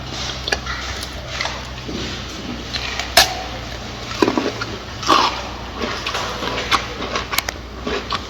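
Gorilla eating: irregular sharp snaps and crunches of food being broken and chewed, the loudest about three seconds and five seconds in, over a steady low hum.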